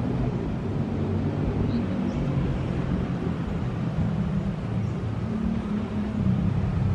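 Road traffic: motorcycle and other vehicle engines running past in a steady low drone whose pitch shifts as the bikes go by.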